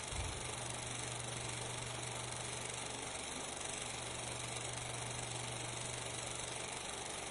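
Steady hiss with a constant low hum, with one brief low thump just after the start: the background noise of a transfer of an old film with no sound of its own.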